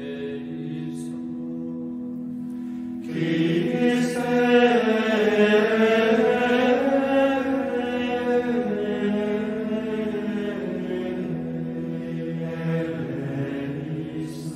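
Ambient background music: a steady low drone under a chanted vocal line that comes in about three seconds in, swells, and slowly fades toward the end.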